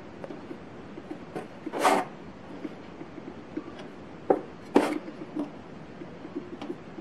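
Stainless steel bench scraper cutting bread dough on a wooden board, with scraping, knocking and handling noises as the pieces are weighed out. There is a longer scrape about two seconds in and two sharp knocks a little past four seconds.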